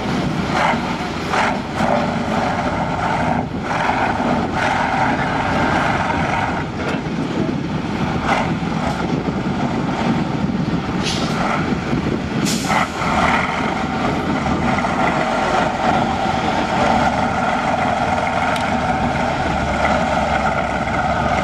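Diesel engine of an eight-wheeled trial truck running under load as it crawls slowly over a dirt mound, with a couple of short hisses about halfway through.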